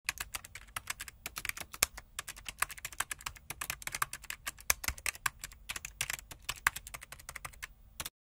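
Keyboard typing sound effect: a rapid, irregular run of key clicks, several a second, stopping abruptly near the end.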